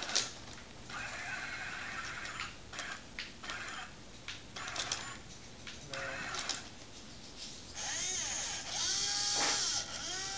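Small electric motors of a Roomba-mounted robot arm whirring in short stop-start bursts with clicks. Near the end a louder motor whine whose pitch glides up and down as the motors speed up and slow.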